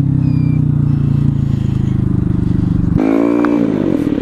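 Motorcycle engine running at a steady speed, then about three seconds in its note jumps up and falls again in a quick rev.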